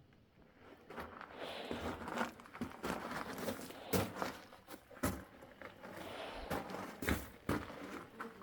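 Footsteps crunching and scraping on loose rock and gravel, with sharp knocks of stones, as someone scrambles down a steep debris slope. The crunching starts about a second in and goes on unevenly.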